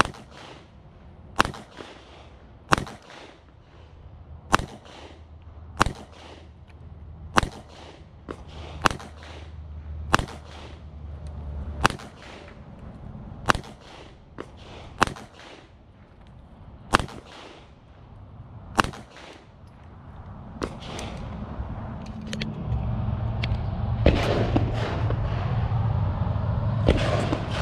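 SIG Sauer P229 pistol fired at a steady, slow pace, about one shot every second and a half, a dozen or so loud shots in a row. In the last third the shots come fainter and more irregular over a rising low rumble.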